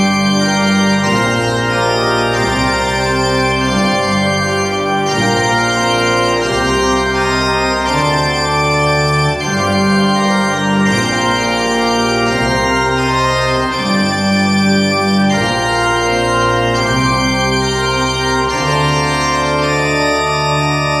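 Pipe organ playing full, sustained chords over a bass line that moves to a new note every second or two.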